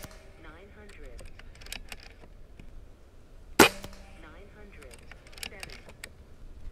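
A single shot from a JTS Airacuda Max .22 regulated PCP air rifle, a sharp crack about three and a half seconds in. It is framed by a few faint clicks as the side lever is cycled between shots.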